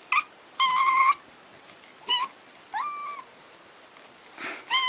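A cat meowing repeatedly: four short, high-pitched meows, one of them sliding upward in pitch, then another meow starting near the end.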